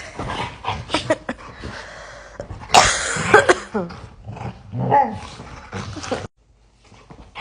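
Puppies play-fighting: growling and scuffling with several short high yips and whines, cutting off suddenly near the end.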